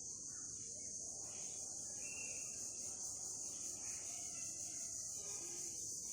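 A steady, high-pitched chorus of insects such as crickets, with a few faint short chirps over it.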